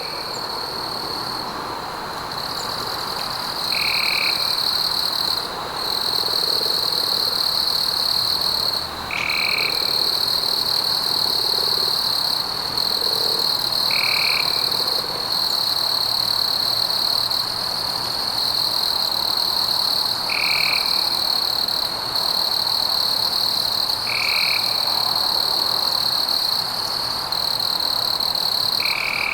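Rainforest frog and insect chorus: a steady high trill runs throughout, and a short single call comes back about every four to six seconds.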